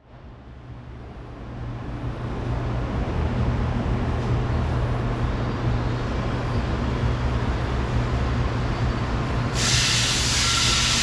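Steady background noise: a low hum under a hiss, fading in over the first couple of seconds; the hiss turns brighter about nine and a half seconds in.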